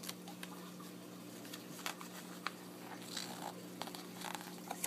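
Pages of a travel guide book being handled and turned: soft paper rustling with scattered small clicks and taps, the fullest rustle about three seconds in.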